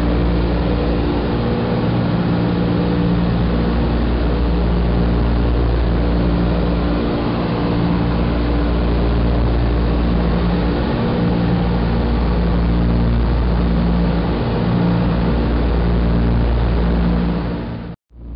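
Twin radial piston engines of a Douglas DC-3 droning steadily in cruise, heard from inside the cockpit, their tones swelling and fading in a slow regular beat. The sound cuts out abruptly for a moment near the end.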